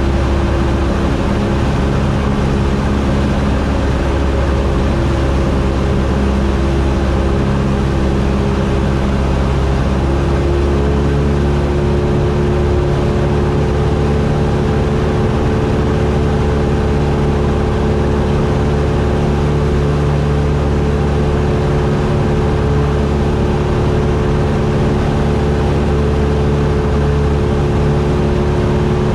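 Cessna 172's piston engine and propeller droning steadily in flight, heard from the cockpit; the engine note shifts slightly upward about ten seconds in.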